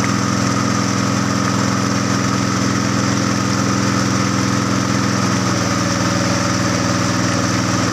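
Small boat engine, likely an outboard motor, running steadily; its pitch shifts slightly about five and a half seconds in.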